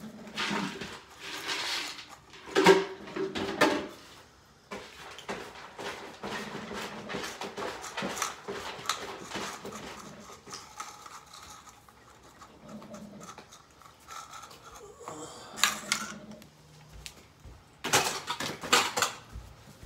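Several cats eating wet food from tins and bowls on a tile floor: a steady jumble of wet chewing and licking, with a few louder knocks and clatters of the tins and bowls.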